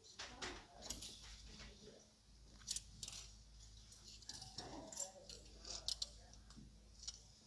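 Plastic clothes hangers clicking and sliding along a metal clothes rail as trousers are pushed aside one by one, with a few sharp clacks, over a low steady hum.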